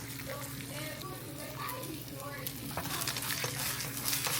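Eggs frying in a pan, sizzling and crackling, the sizzle growing louder about three seconds in.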